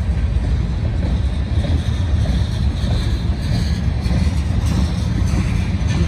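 Freight train of tank cars rolling past, a steady low rumble of wheels on rails with no single knock or horn standing out.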